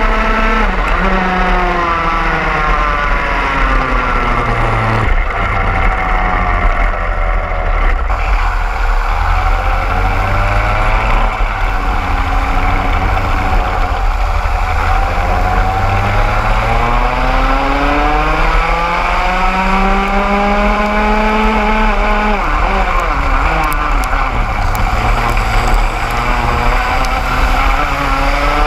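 Two-stroke racing kart engine heard from on board, revving up hard along the straights and dropping in pitch as it brakes for each corner, several times over, with other karts' engines close by.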